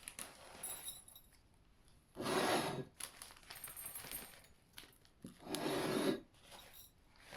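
Dry cat kibble poured into a bowl twice, each pour a short rattling rush of under a second.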